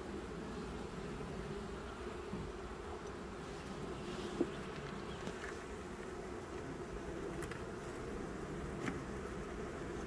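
Honey bee colony humming steadily over an open hive, with two brief faint clicks, one about halfway through and one near the end.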